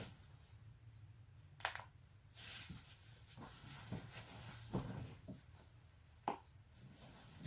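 Joints cracking: a sharp pop about one and a half seconds in and another near the end, with softer clicks and a brief rustle between.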